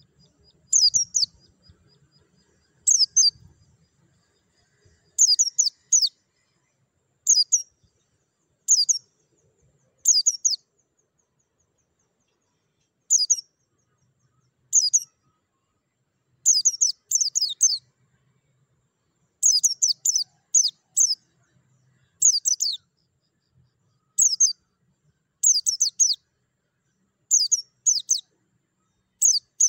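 White-eye (pleci) calling: short, high chirps in clusters of two or three, repeated every second or two.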